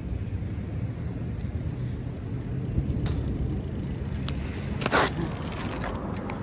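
BMX bike rolling over rough, gravelly asphalt toward a ground-level microphone, a steady low rumble; about five seconds in, a short loud scrape as the rider comes to a stop.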